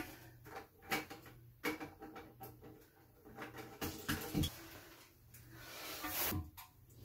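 Plastic nut being threaded by hand onto a Kohler fill valve's shank beneath a toilet tank: scattered light clicks and knocks of plastic parts.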